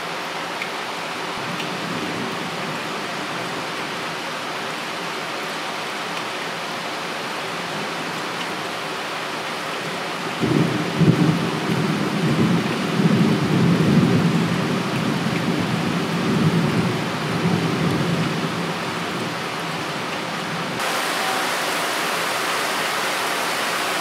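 Torrential typhoon rain pouring in a steady hiss. About ten seconds in, distant thunder breaks into a low rolling rumble that swells twice and dies away over some eight seconds. Near the end the rain's hiss turns louder and brighter.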